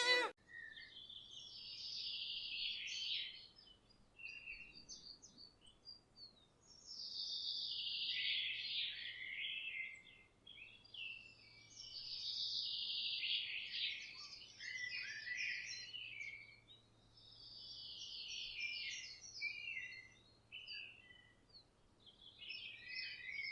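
A songbird singing: about five song phrases of two or three seconds each, every phrase a rapid run of high notes that falls in pitch, with pauses of a couple of seconds between.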